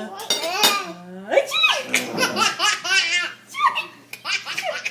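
Baby laughing hysterically at fake sneezes: belly laughs in quick repeated bursts, with a high rising squeal about a second and a half in.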